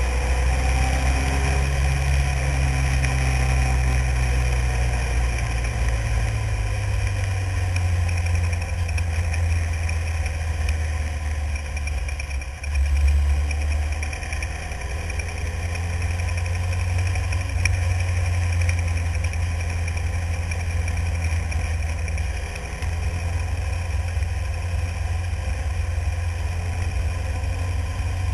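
Single-seater formula car's Renault engine running at speed on track, heard onboard with a heavy low rumble of wind on the microphone from the open cockpit. The engine pitch rises and falls as the car accelerates and slows, with a brief dip about halfway through before it picks up again.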